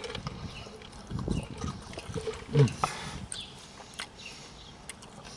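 Close-up chewing and mouth noises from a man eating crunchy fried chicken tenders: irregular crunches, clicks and wet smacks, with a short hummed sound about two and a half seconds in.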